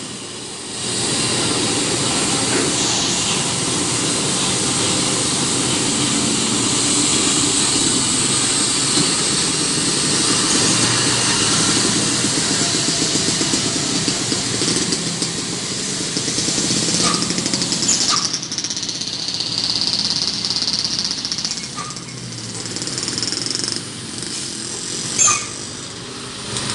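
Slow traffic on a steep wet downhill bend: heavy diesel trucks running close by, mixed with passing motorcycles and cars, as a steady rumble. A high hiss comes in for a few seconds past the middle.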